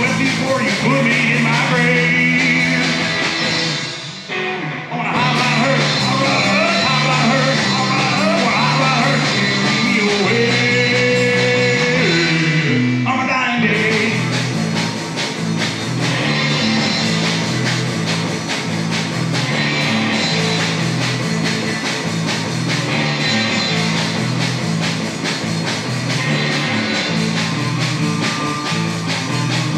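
A psychobilly band playing: electric guitar over a driving bass line and drum kit. There is a short break about four seconds in, and a falling guitar slide a little before the midpoint.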